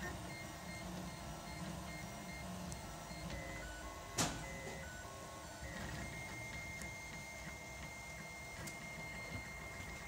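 Home-built RepRap-style 3D printer printing: its stepper motors sing in short steady tones that change pitch as the print head moves, over a steady fan hiss, with one sharp click about four seconds in.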